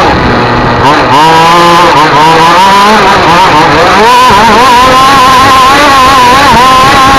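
Racing engine at full throttle, very loud. In the first few seconds the revs climb and drop back several times as it shifts up quickly, about once a second. From about four seconds in it is held high and steady with small wavers.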